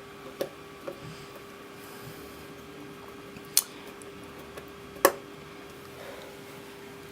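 A few sharp clicks and light taps of a small screwdriver and screws on a laptop's plastic screen frame as the screws are put back in, over a steady hum. The two loudest clicks come in the middle.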